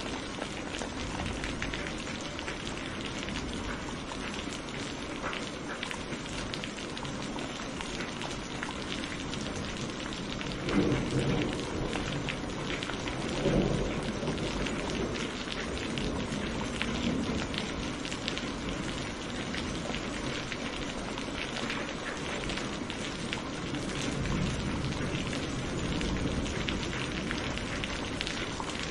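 Steady rain falling, with dense fine drops, and two short low rumbles of thunder near the middle.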